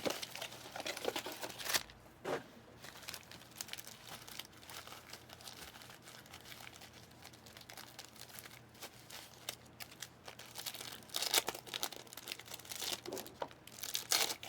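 Foil trading-card pack wrappers being torn open and crinkled, with cards handled between the louder rips; a scattered crackling that grows louder in clusters near the end.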